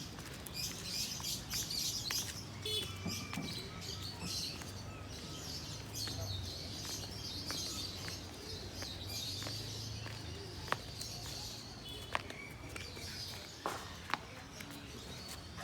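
Many caged birds chirping and twittering at once, with a few sharp clicks in the second half.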